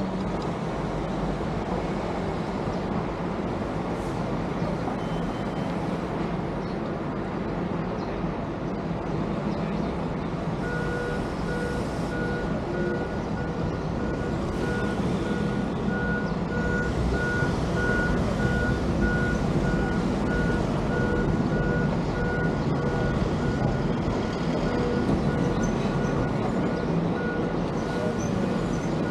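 Steady vehicle engine and road noise; from about a third of the way in, a vehicle's reversing alarm beeps steadily, in evenly spaced short beeps on one pitch.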